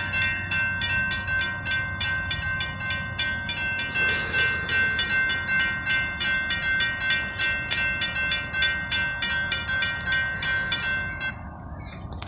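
Railroad crossing warning bell ringing steadily, about two and a half strikes a second, while the crossing gates lower. It stops about eleven seconds in, once the gate arms are down.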